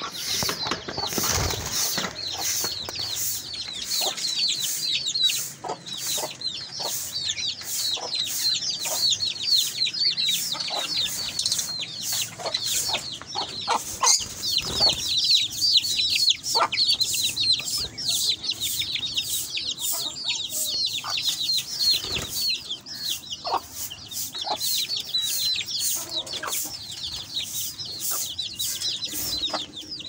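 A flock of caged small parrots, lovebirds and budgerigars, chattering together: a dense, continuous stream of short, high, rapid chirps, with a few soft knocks in between.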